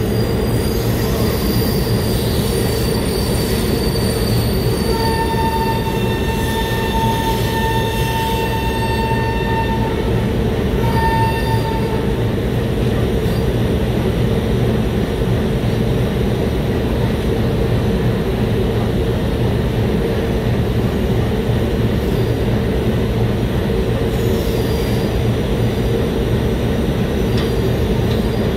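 Indian Railways passenger coaches rolling past a platform as the express pulls in, with a steady rumble of wheels on rail. About five seconds in, a high, steady squeal from the running gear rises over it, lasts about seven seconds and breaks off once briefly.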